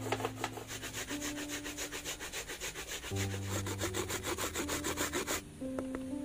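Coconut flesh grated by hand on a punched-metal grater over a basin: a fast, even run of scraping strokes that stops about five and a half seconds in.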